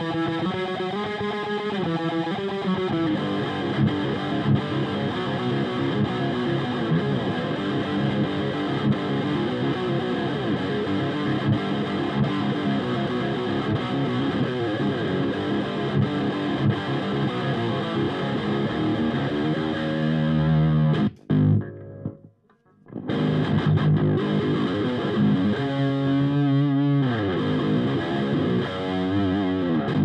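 Heavily distorted seven-string electric guitar, a Carvin DC727 with Bare Knuckle BlackHawk pickups, played straight into a Diezel VH4 tube amp on channel 3 with no pedals or noise gate, and close-miked on the cabinet with an SM57. Dense riffing cuts off sharply about 21 seconds in and falls silent for a second or so, then starts again with sliding notes.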